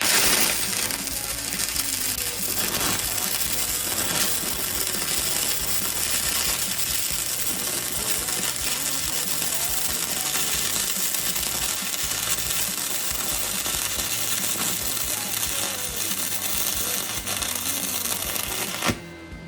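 Stick (arc) welding: the electrode's arc crackling and sizzling steadily for about 19 seconds as one weld bead is laid on thick steel, starting suddenly and cutting off sharply near the end when the arc is broken.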